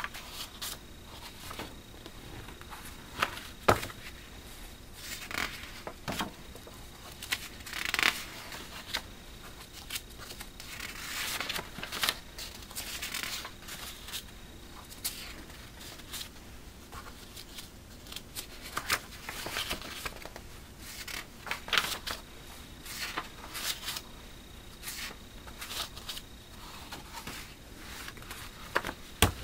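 Magazine pages being turned by hand, paper swishing and rustling in irregular bursts every second or two, with a few sharper flaps as a page or magazine is flipped over.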